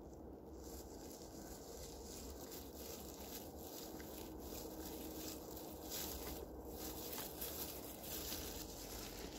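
A moose chewing and pulling at leafy birch twigs from a birch broom: a continuous run of crunching and leaf rustling.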